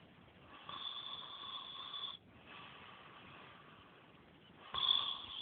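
A person snoring in slow breaths. One snore comes about a second in and lasts about a second and a half, then a quieter breath follows, and the next snore starts near the end.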